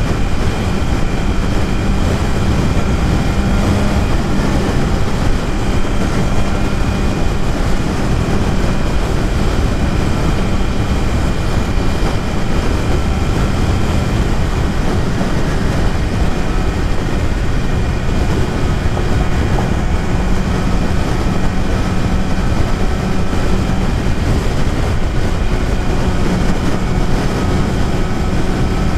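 BMW S1000RR's inline-four engine running at a steady cruise, with heavy wind rush on the rider's microphone.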